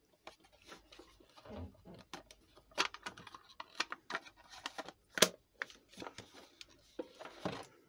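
Stylophone's plastic case being handled and turned over: irregular clicks, taps and rustles, with sharper knocks about three and five seconds in.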